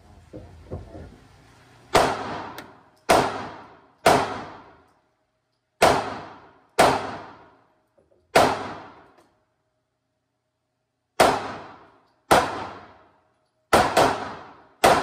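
Semi-automatic pistol, a Glock-pattern handgun, fired shot by shot at an uneven pace, about eleven shots with a pause of nearly three seconds midway and a quick pair near the end. Each shot is loud and sharp, with a short echo ringing off the walls of an indoor firing range.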